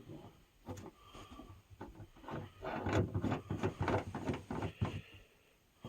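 A string of small clicks, scrapes and rubbing sounds from hands handling the antenna parts at the truck's roof-mounted antenna base, busiest in the second half before dying away near the end.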